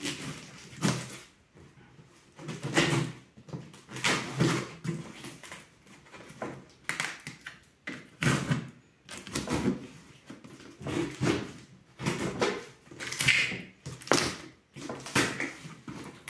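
Knife slicing through packing tape and corrugated cardboard, then tape and cardboard flaps tearing loose. It comes as a series of irregular rasping, scraping strokes about every second or two.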